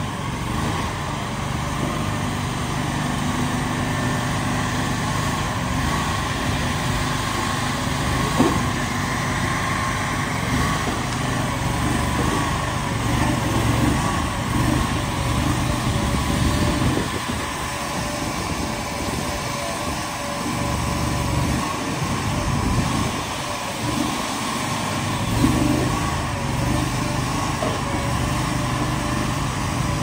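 Small engine of a trailer-mounted Tajfun log loader running steadily, powering the crane as its grapple picks up and lifts a log, with a single knock about eight seconds in.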